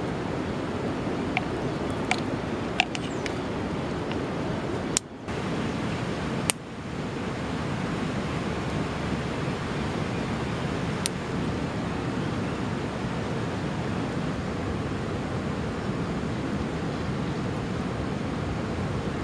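Dry tinder nest of leaves and bamboo shavings burning, with a few sharp crackles in the first few seconds, over a steady outdoor rushing noise that briefly drops out twice around five and six and a half seconds in.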